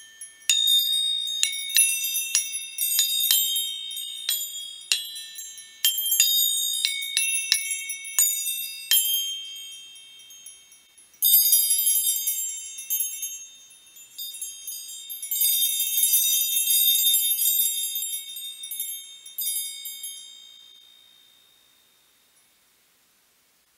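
High, bell-like chiming tones, struck in quick clusters and left to ring, with denser shimmering swells about eleven and fifteen seconds in. The chiming then fades away to nothing over the last few seconds.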